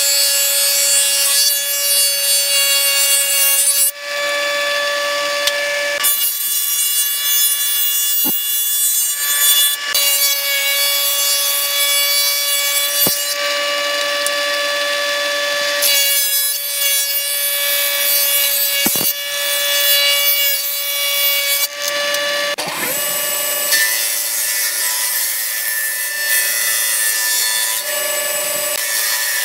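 Hitachi combination jointer-thickness planer running with a steady high whine while its cutterhead planes boards. The cutting noise changes every few seconds as boards go in and come out.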